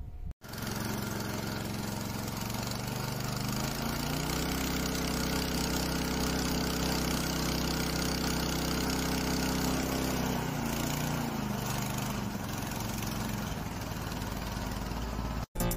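A 36-inch power trowel's 5.5 horsepower GX160 petrol engine running. It revs up about four seconds in, holds the higher speed, then drops back to a lower speed near two-thirds of the way through before cutting off.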